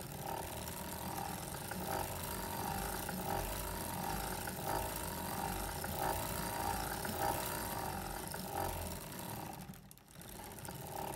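Foster Victoria vintage circular sock machine being hand-cranked round, its needles and cams clattering in a steady rhythm as it knits the ribbed cuff of a sock. The clatter drops away briefly near the end, then resumes.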